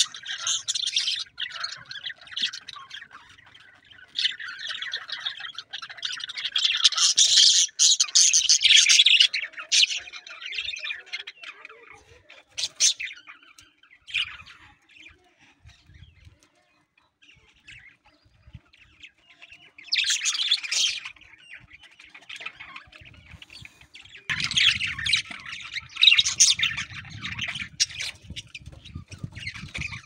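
A flock of budgerigars chattering and warbling in bouts of one to several seconds, with quieter gaps between. The busiest stretches are in the first half and again near the end.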